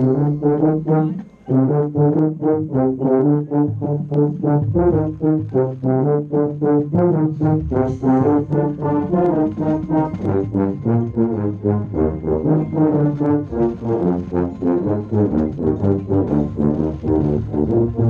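Contra (marching contrabass tuba) played right at the microphone: a quick, steady run of short, detached low notes, about three a second, with a brief break about a second in.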